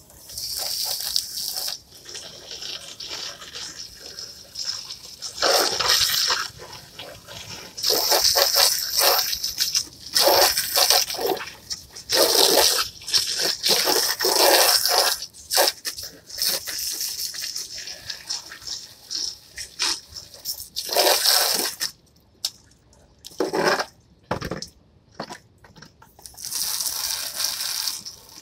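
Garden hose spray nozzle jetting water onto plastic patio chairs in on-and-off bursts of hissing spray. The spray's strength goes up and down with the water pressure.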